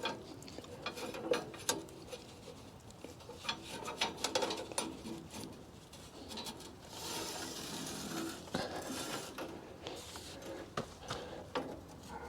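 A steel band blade being worked by hand around the band wheels of a Wood-Mizer LT40 sawmill, the wheels loose and turning freely. Scattered metal clicks and rubbing, with a longer scraping stretch about seven seconds in.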